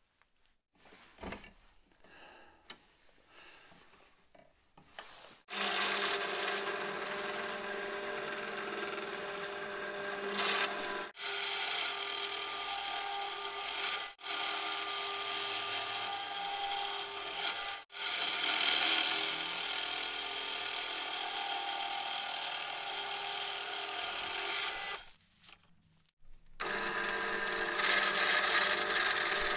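Benchtop drill press running and boring into laminated plywood discs: a steady motor hum under the rasping of the bit cutting wood. It starts about five seconds in after some faint handling sounds, drops out abruptly a few times, stops briefly near the end, then resumes.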